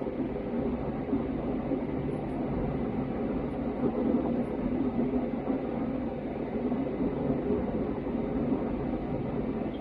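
Steady cabin noise inside an Airbus A320neo in flight: an even, low rush of airflow and engine noise from the Pratt & Whitney PW1100G geared turbofans, heard from a window seat.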